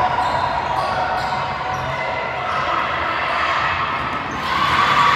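Basketball game sound in a gym: a ball bouncing on the hardwood amid crowd noise and players moving on the court, getting louder about four and a half seconds in.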